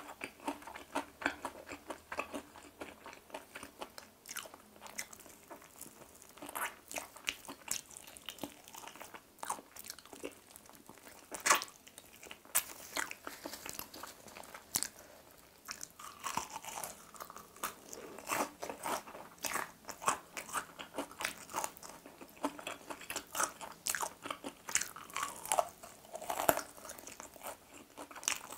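Crispy fried chicken drumstick being bitten and chewed: dense crunching and crackling of the fried coating, with a loud crunch about eleven seconds in and another near the end.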